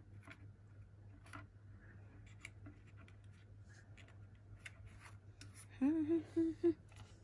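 Scattered small clicks and light scraping as hands handle a plastic model locomotive on a wooden board, over a steady low hum. A brief murmured voice comes in near the end.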